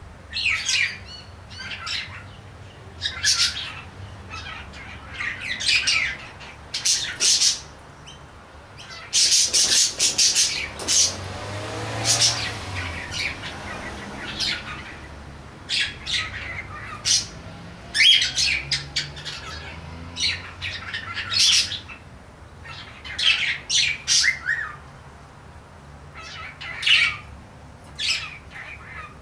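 Cockatiel chattering with chirps and squawks in short, repeated bursts, with a harsher, noisier stretch about ten seconds in.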